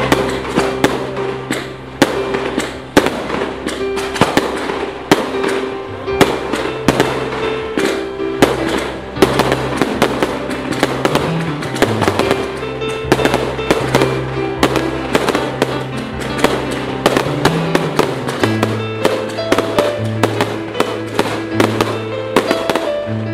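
Aerial fireworks going off in quick, irregular bangs and crackles, mixed with music that has a held, changing bass line.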